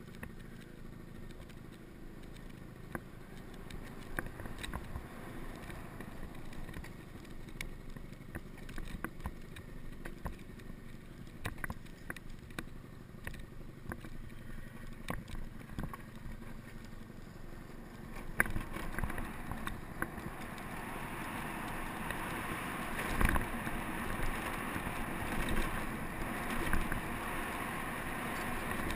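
Honda scooter riding down a steep street: steady road and wind noise with scattered light knocks and rattles, growing louder and hissier about two-thirds of the way through.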